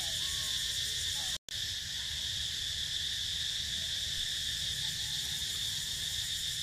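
Dense, steady high-pitched insect chorus, the shrill buzzing of forest cicadas or crickets. It breaks off for an instant about a second and a half in.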